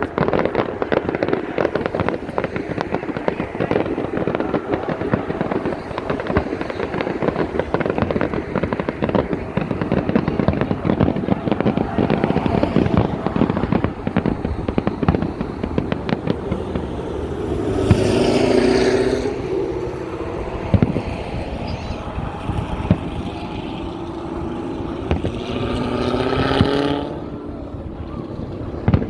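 Consumer fireworks crackling and popping in a dense, rapid stream, then thinning out, with two louder drawn-out sounds of shifting pitch, one past the middle and one near the end.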